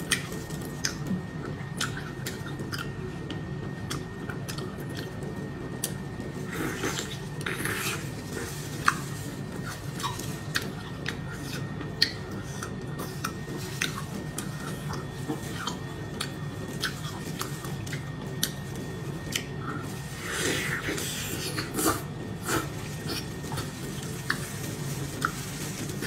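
Close-up mukbang eating sounds: wet chewing and mouth clicks on cooked octopus, with plastic food gloves handling the sticky tentacles. Many short sharp clicks come through, denser in two patches, over a steady low hum.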